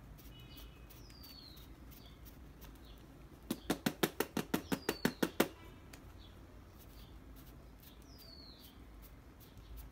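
A quick, even run of about sixteen sharp clicks over two seconds, starting about three and a half seconds in, with a few short high falling bird chirps scattered through.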